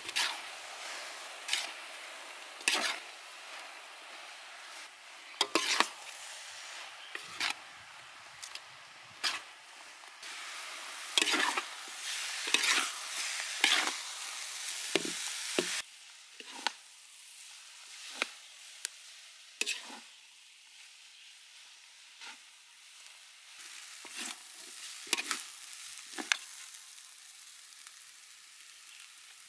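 Yellow noodles sizzling in a large metal wok while two metal utensils toss and stir them, clanking and scraping against the pan at irregular moments. The sizzle is loud for about the first half, then drops off sharply and stays fainter.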